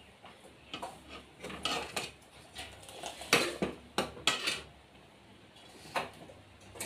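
Metal spoon clinking and scraping against metal cooking pots on a gas stove while food is stirred: a scattered series of short knocks and scrapes, loudest and closest together about three to four and a half seconds in.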